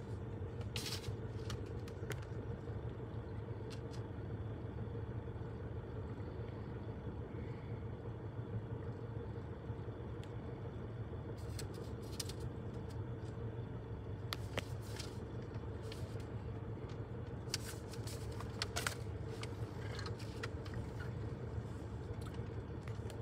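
A steady, unchanging engine hum heard from inside a vehicle cab, with scattered light clicks and knocks.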